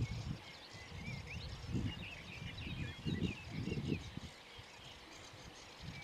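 Small birds chirping and whistling in short, overlapping calls, busiest in the middle, over intermittent low rumbles.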